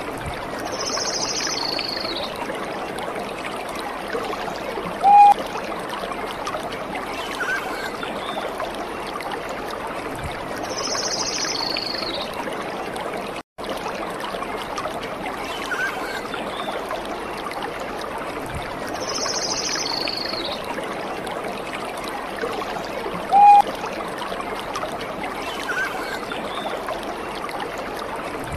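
Nature-sound track of a running stream, a steady trickling with occasional faint high chirps. A short, loud call sounds about five seconds in and again some eighteen seconds later, since the same stretch of recording repeats, and the sound cuts out for a moment near the middle.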